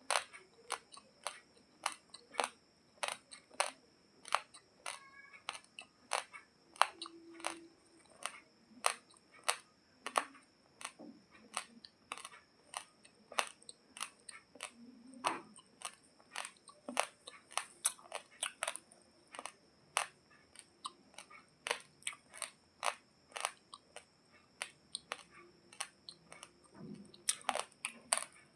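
Uncooked Daawat Pulav basmati rice being chewed close to the microphone: a steady run of sharp, crisp crunches, two or three a second, as the dry grains crack between the teeth.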